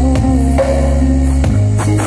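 Music played loud through a large outdoor sound system of stacked speaker cabinets, with a heavy steady bass, held notes above it and several drum hits.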